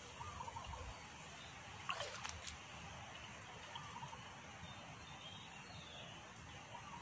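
Faint outdoor ambience with an uneven low rumble of wind on the phone microphone, a few faint clicks about two seconds in, and some brief faint calls.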